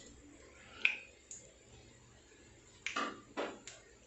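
Light clinks and knocks as whole spices are tipped from a plastic lid into a pot of oil: one sharp ping about a second in, then a few short knocks near the end.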